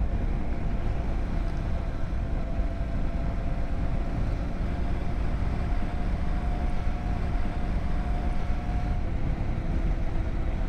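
Motorcycle under way in slow town traffic, heard from on the bike: engine and wind noise make a steady low rumble, with a faint steady whine through most of it.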